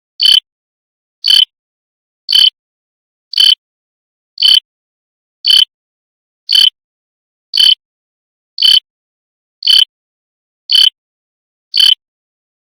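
Digital alarm clock chirping: short, high-pitched chirps repeating evenly about once a second, with silence between them.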